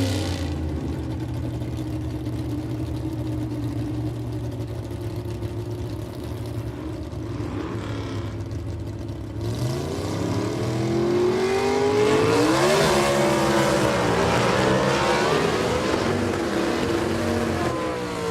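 Motorcycle engine running at a steady idle, then revved up and down several times from about halfway through, loudest a little past the middle, and dropping back near the end.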